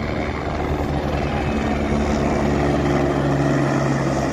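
Light single-engine helicopter flying low overhead, its main rotor and engine giving a steady drone that grows a little louder as it approaches.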